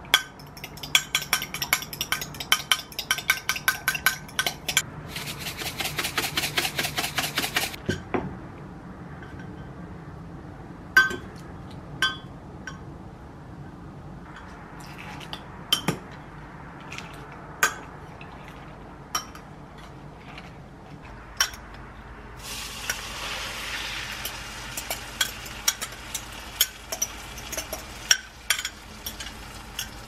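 Fork beating eggs in a glass measuring cup: rapid clinks of metal on glass, fastest between about five and eight seconds in. Then come scattered taps as shredded cabbage is stirred into the egg. Over the last several seconds a steady sizzling hiss comes in from the frying pan.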